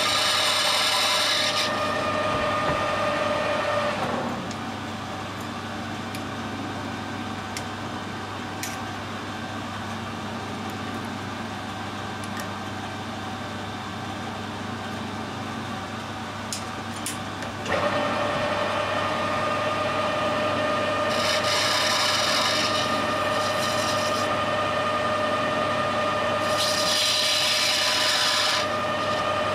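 Metal lathe running with a steady whine while a turning tool faces a small bronze part, the cut giving a rasping hiss. About four seconds in the lathe drops away to a low hum with a few small clicks of handling, then starts up again near eighteen seconds, with two more stretches of cutting hiss.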